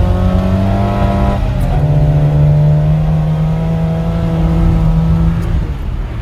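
Car engine heard from inside the cabin under hard throttle, its pitch climbing, then dipping about one and a half seconds in, then held high and steady before easing off near the end.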